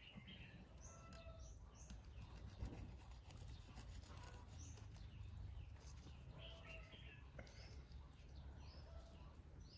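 Faint birdsong: scattered short chirps from small birds over a low steady background rumble.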